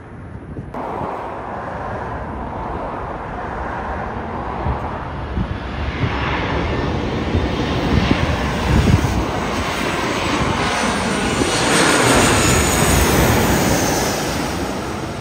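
Boeing 737-800's CFM56-7B turbofan engines as the airliner passes low overhead on final approach with gear down. The engine noise and a high whine build steadily to their loudest as it goes over, then begin to ease near the end.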